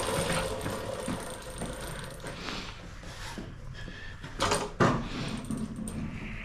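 Mini bike being handled into the back of a truck: scattered clicks and rattles, then two sharp knocks in quick succession a bit past halfway, over a steady low hum.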